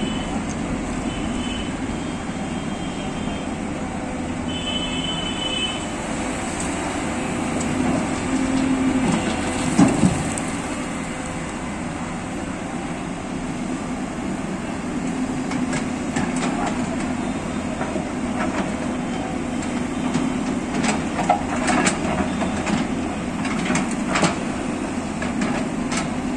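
Hyundai tracked excavator's diesel engine running steadily under load while it digs, with the bucket scraping and clanking and stones clattering, most often in the second half. Two short high beeps sound in the first few seconds, and there is one loud knock about ten seconds in.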